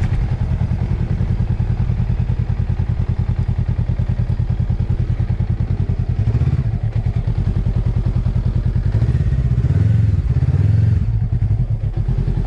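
Motorcycle engine running at low speed with a rapid, even exhaust pulse, swelling briefly about six seconds in and again around ten seconds in.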